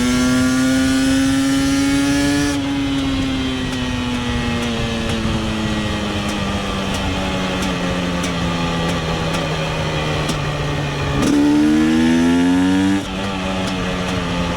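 KTM 250 EXC TPI single-cylinder two-stroke engine running under way. Its pitch climbs under throttle, falls off about two and a half seconds in, and sinks slowly for several seconds. Near the end the revs rise sharply and louder for about two seconds, then drop abruptly.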